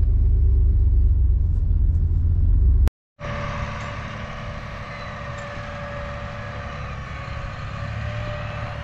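Heavy diesel engine of a John Deere 8360R tractor running, a deep, loud rumble. After a brief break about three seconds in, it runs softer and steadier, with a faint whine that wavers in pitch.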